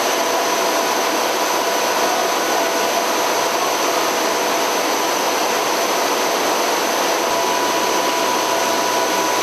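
MC-130P's four Allison T56 turboprop engines running: a steady, loud rushing drone with several steady whining tones over it.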